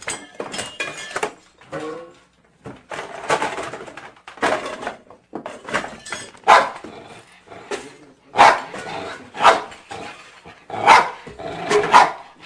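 Small dog barking repeatedly, single sharp barks about a second apart, after a few short whines in the first two seconds.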